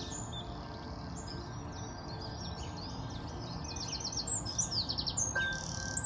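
European robin singing: a busy run of high, quick phrases and trills that grows fuller toward the end. A soft bell-like music note comes in about five seconds in.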